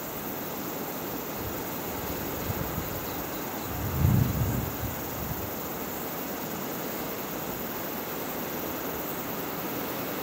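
Steady outdoor background hiss, with a brief low rumble about four seconds in.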